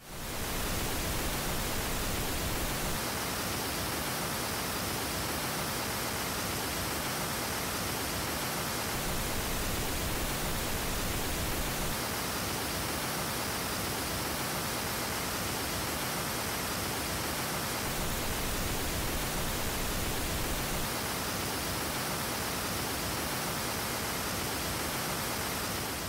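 Pink noise test signal at a steady level, its tone shifting every few seconds as it switches between the unaltered noise and the noise convolved with the measured response of a PSB Alpha B bookshelf speaker, both undamaged and with a dented tweeter and midwoofer.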